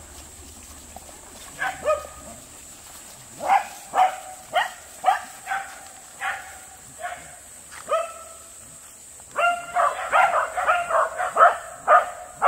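Corgi barking: single barks at gaps of about half a second to a second, then a quick run of barks near the end.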